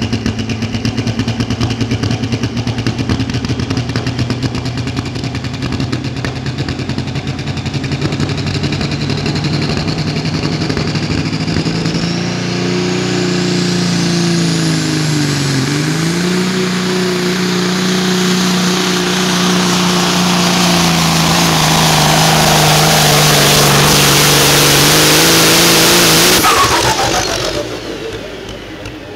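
Pro stock diesel semi truck under full load pulling a weighted sled. The engine revs climb with a rising turbocharger whistle, dip sharply once about halfway through, then hold at high revs. Near the end the throttle is cut, the engine drops away and the turbo whistle winds down.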